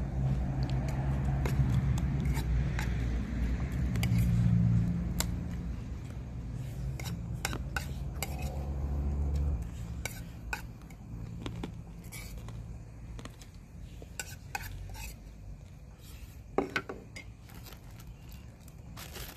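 Spoon and cutlery clinking against plates and bowls in scattered sharp clicks. Under the first half runs a low engine-like hum that drops away about halfway through.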